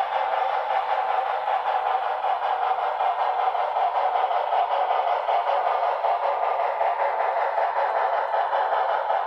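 HO-scale Paragon4 sound-decoder steam locomotive running on the track, its small onboard speaker giving a steady steam running sound.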